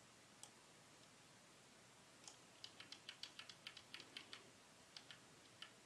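Faint clicks of a computer keyboard and mouse: a single click about half a second in, then a quick, irregular run of clicks from about two seconds on.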